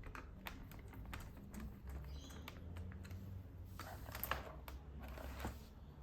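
Plastic clicks from a Logitech wireless keyboard's keys and keycaps being worked by hand, irregular at first and then busier and louder from about four seconds in.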